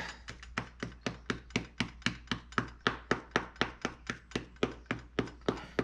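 A dish brush jabbed repeatedly into soft modelling clay to stipple a texture into it: a steady run of dull taps, about five a second.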